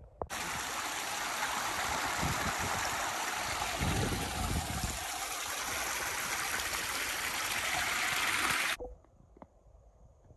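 Steady rush of a small mountain stream's flowing water. It starts suddenly just after the beginning and cuts off abruptly about a second and a half before the end.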